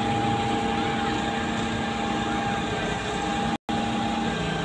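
Truck-mounted concrete boom pump running: a steady engine and hydraulic drone with a few steady hum tones. It cuts out for an instant about three and a half seconds in.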